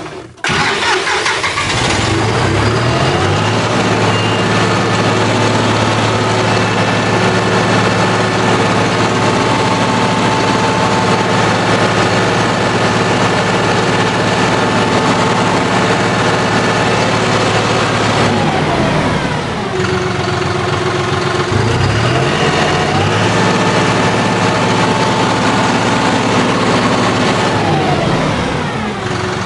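John Deere 5075E tractor's three-cylinder diesel engine starting about half a second in, on its first start after an oil and filter change, and running fast. Its pitch falls about two-thirds of the way through, rises again a few seconds later, and falls once more near the end as the throttle is worked.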